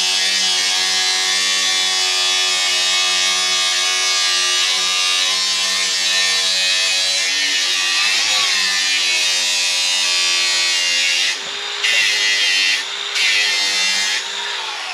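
Angle grinder grinding steel: a steady motor whine under a loud, hissing grind of the disc on metal. The pitch sags briefly about eight seconds in. Near the end the grinding noise cuts out a few times while the motor keeps whining.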